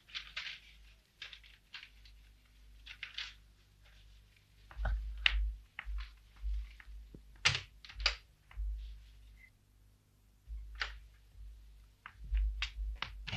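Paper rustling as a letter is handled, in short irregular strokes, with a few dull thumps between them.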